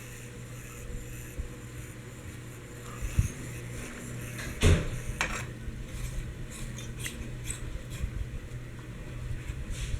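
Orient GEV ceiling fan running with a low steady hum, with scattered light clicks and a sharper knock a little under five seconds in.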